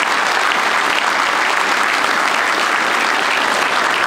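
Audience applauding: many people clapping together, steady and sustained.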